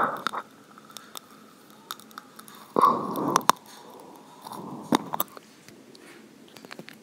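Marker tip scratching and squeaking across a clear plastic zip-lock bag as a heart is drawn, in a few short strokes with light clicks and crinkles of the plastic between them.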